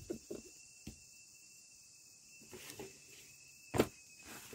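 Faint handling noise: a few soft clicks and rustles, with one sharper knock a little before the end, over a thin steady high-pitched tone.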